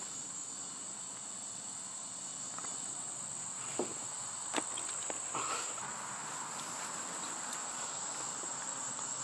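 Evening insect chorus, a steady high-pitched trill, with two short clicks about four seconds in.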